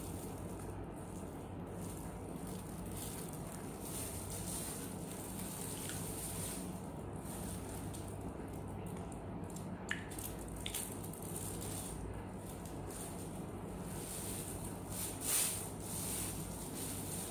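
Steady low room hum with occasional soft rustling from plastic food gloves and small eating noises as an ice cream on a stick is eaten. A short rustle about fifteen seconds in is the loudest sound.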